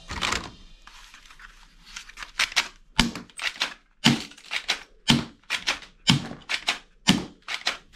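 Hard plastic toy guns clacking and rattling as they are handled and shifted about in a cardboard box. A run of sharp clicks and knocks comes several a second, with a heavier knock about once a second.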